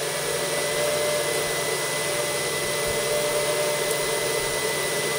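Titan Aero extruder's stepper motor running at a constant slow rate, pushing PLA filament through the heated hot end: a steady whine over an even whirring hiss.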